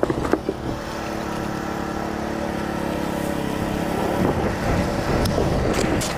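An engine running steadily, turning rougher and noisier about four seconds in.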